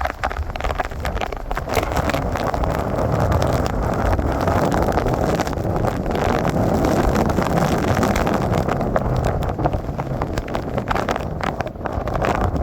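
Hurricane wind and rain buffeting the microphone, making a loud, steady rushing rumble that thickens about a second and a half in.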